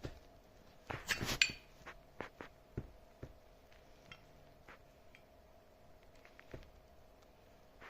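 Small hard clicks and clinks, the loudest in a quick cluster about a second in, then scattered lighter ticks, over a faint steady hum.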